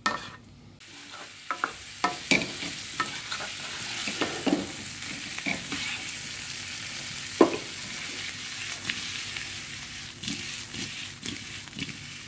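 Paneer cubes sizzling in butter in a kadhai, stirred and turned with a spatula: a steady sizzle starting about a second in, with frequent scrapes and light knocks of the spatula against the pan, the sharpest about seven seconds in.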